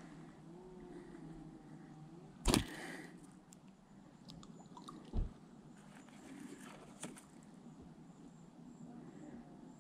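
A few sharp knocks and clicks over a faint, quiet outdoor background, the loudest about two and a half seconds in and a duller thump about five seconds in.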